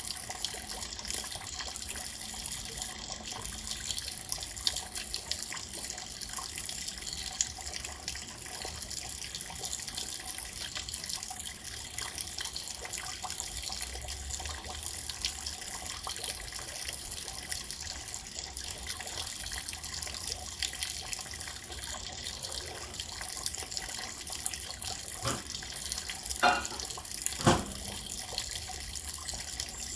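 Rain falling steadily as an even hiss, with a few sharp knocks or drips about three-quarters of the way through.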